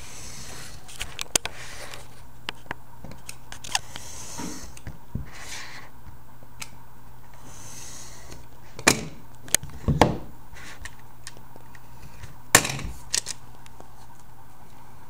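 Craft knife blade drawn along the edge of an acrylic photoblock, trimming off the excess photograph in several short scraping strokes. Sharp clicks and knocks come in between, the loudest around the middle and near the end, as the knife and block are handled on the cutting mat.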